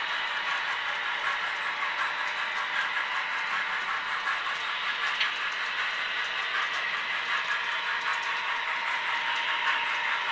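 Model trains running on layout track: a steady rolling rattle of small wheels and motors on the rails, with light clicks throughout.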